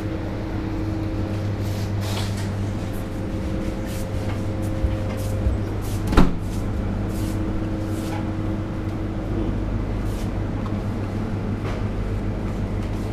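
Steady electrical hum of supermarket refrigerated display cases, made of several low tones held level, with faint rustles and a single sharp knock about six seconds in.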